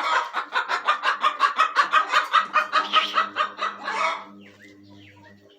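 Hen clucking in a fast, even run, about seven clucks a second, that stops about four seconds in; a hen the keeper takes to be wanting to go lay an egg.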